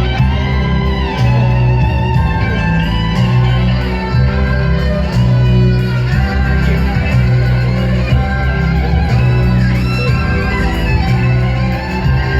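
Loud instrumental music with a guitar melody gliding between notes over a bass line that changes note about once a second.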